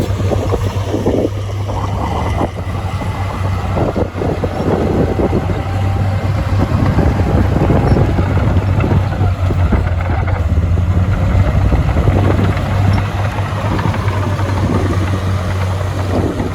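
Heavy earthmoving machinery at work: a diesel engine runs with a steady low hum, under a constant clatter and scattered knocks.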